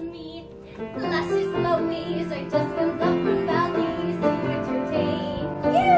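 Live stage-show music: instrumental accompaniment comes in about a second in, with a woman singing over it.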